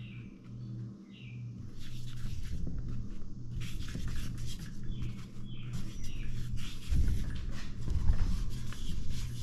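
Handling noise from gloved hands working around a bare engine block while oiling the cylinder bore: irregular rustling, scraping and light knocks starting about two seconds in, with a few short high squeaks, over a steady low hum.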